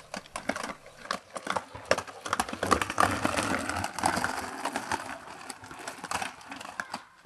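Footsteps and scuffing on a paved street from a group walking, irregular sharp clicks with a rushing noise that swells in the middle.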